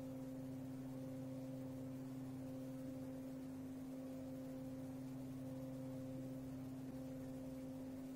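Echo Show 10 swivel-base motor humming steadily as it turns the screen from side to side during the device's motion calibration, a low steady tone with a fainter higher note that comes and goes about once a second.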